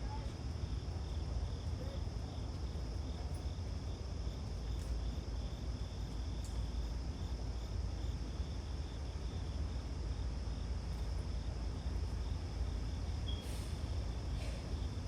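Crickets chirping in a steady, high pulsing rhythm of about two to three pulses a second, over a steady low rumble.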